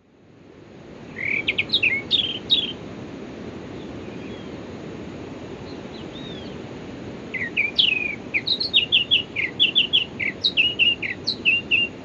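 A bird singing: quick, sharp chirps, one short run about a second in and a longer run from about seven seconds on, over a steady low rush of background noise.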